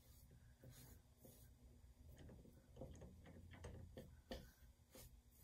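Faint, irregular taps and scratches of a paintbrush dabbing and stroking acrylic paint onto a canvas, coming thickest and quickest from about two to four seconds in.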